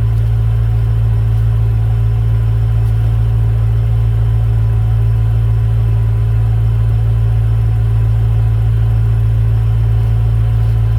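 BMW M3 E9X's 4.0-litre V8 idling, a steady low hum that holds even throughout.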